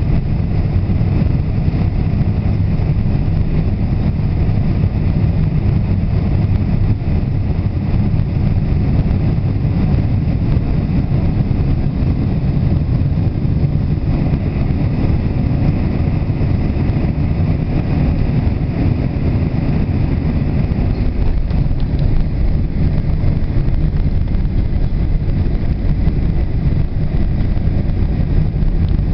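Steady low rumble of engine and airflow noise heard inside the cabin of a Boeing 747 on final approach, with a fainter hiss of air above it.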